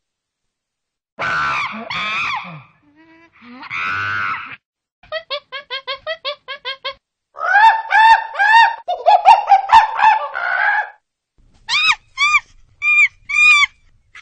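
A series of short, honking bird calls in separate groups: one quick run of about four to five calls a second in the middle, then louder, longer calls, then a few spaced calls near the end, with abrupt silences between groups.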